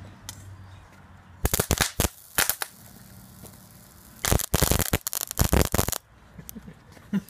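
Crackling, spitting bursts of electrical arcing where a galvanized steel strip touches the terminals of a homemade high-current transformer, an arc-welder transformer rewound with railway cable for thousands of amps. A cluster of bursts comes about a second and a half in, a short one a second later, and a longer run of about two seconds from about four seconds in. A low transformer hum sounds between the bursts.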